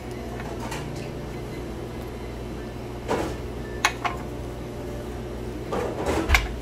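Steady low hum of a shop's indoor room tone, with a few light clicks about three and four seconds in and a heavier knock near the end as plastic tumblers are handled on a glass shelf.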